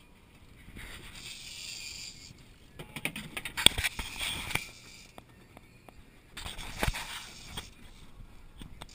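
Fishing reel being cranked against a heavy fish on a bent rod, with clusters of sharp clicks and knocks from the reel and rod handling, twice: about three seconds in and again near seven seconds.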